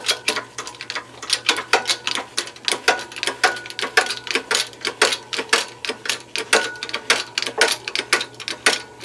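Hydraulic bottle jack of a shop press being hand-pumped, its handle and pump clicking rapidly and a little unevenly, about five clicks a second, as the ram forces a steel strap into a U-shape in a bending jig.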